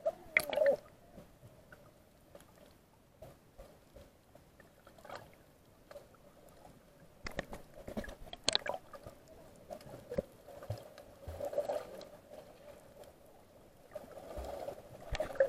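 Muffled underwater water noise from snorkelers swimming and kicking, with scattered clicks and knocks.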